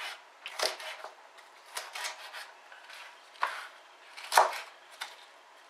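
Chef's knife chopping cabbage leaves on a plastic cutting board: several irregular knocks of the blade striking the board, spaced about a second apart, the loudest about four seconds in.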